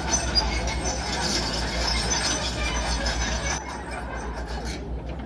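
Tracked excavator moving on its steel tracks: the tracks squeal and clank over a low diesel engine drone, easing off a little after about three and a half seconds.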